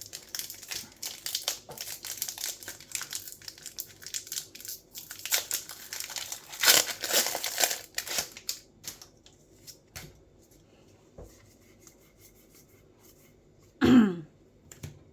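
Foil booster-pack wrapper crinkling as it is handled and crumpled, for about nine seconds, then a few light clicks. Near the end a person makes a short vocal sound, falling in pitch.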